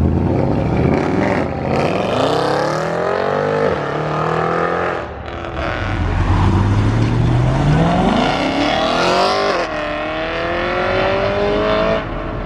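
Sports car engines accelerating hard, the revs climbing steeply and falling at each gear change, twice over, then climbing again near the end.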